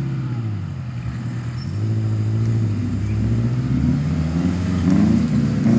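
Off-road 4x4's engine revving under load as it climbs a rutted dirt trail, its pitch rising and falling again and again and growing louder over the last few seconds.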